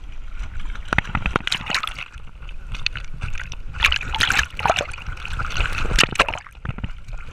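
Pool water splashing and sloshing right at a GoPro strapped to a swimming dog, in irregular clusters of splashes.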